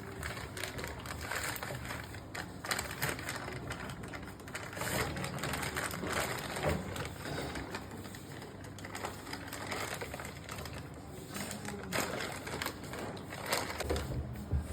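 Irregular light clicks, knocks and rattles of small parts being handled during repair work on a washing machine's timer.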